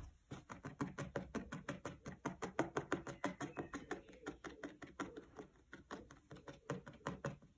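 Felting needle stabbing repeatedly through wool fibres into a foam felting pad: a quick, even run of soft taps. The wool is being pushed down and blended into the background felt.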